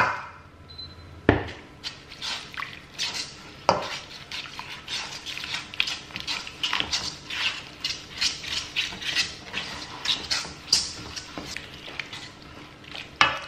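A whisk beating milk into a thick flour-and-butter roux in a non-stick pan, with quick, steady scraping and clattering strokes against the pan's base and sides. Two sharper knocks come in the first four seconds. This is the stage of working the first splashes of milk into the roux for a white sauce.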